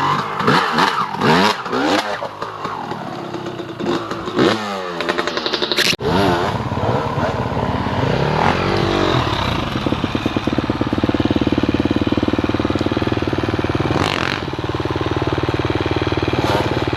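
Dirt bike engine revving up and down in quick rises and falls of pitch. A sudden cut comes about six seconds in, and after it the engine runs at a steadier note.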